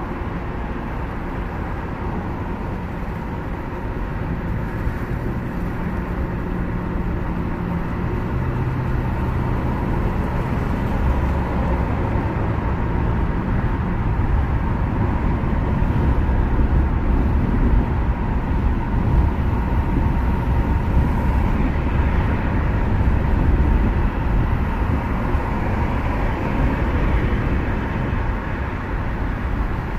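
Steady road and engine noise of a car driving at speed on a multi-lane highway, heard from inside the moving car. The rumble grows a little louder a few seconds in.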